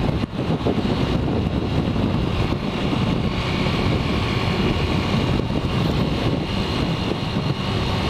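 Yamaha XTZ 150 Crosser motorcycle riding at road speed, its single-cylinder engine running under steady rushing wind on the camera's microphone in a strong gale.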